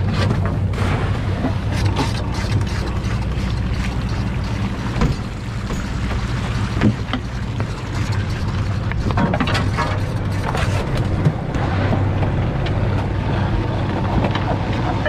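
Crab boat's engine running steadily under the rush of water and wind, with scattered knocks and clanks from gear on deck.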